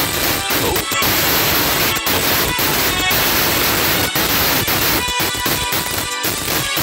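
Film soundtrack music buried under a dense, static-like hiss, with brief dropouts; a few held notes come through near the end.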